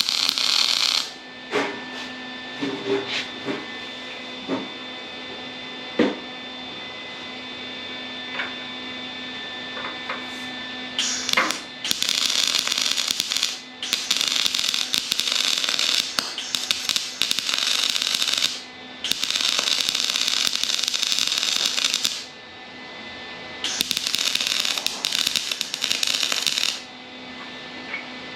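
Electric welding on sheet steel, joining the Z bar to the floor pan in a series of short welds. There is a brief burst of crackling hiss at the start, then four bursts of about three to five seconds each from about eleven seconds in, with small clicks and taps between them.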